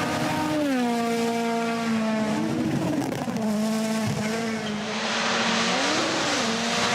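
A rally car's engine on a stage, its pitch dropping about half a second in as the driver lifts or shifts, then rising and falling twice more with the throttle. A rushing noise of the tyres swells near the end.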